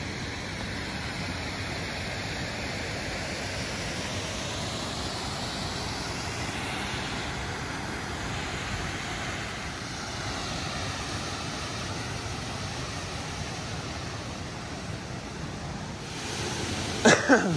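Steady rushing of water from a waterfall and the creek below, with a short loud burst near the end.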